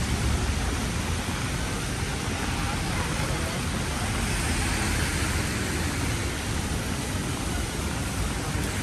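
Heavy rain falling on a city street, a steady even hiss, with the swish of traffic on the wet road beneath it.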